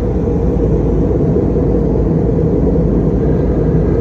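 Steady low rumble of an Airbus A321-231 in flight, heard inside the passenger cabin: the drone of its IAE V2500 turbofan engines mixed with airflow over the fuselage.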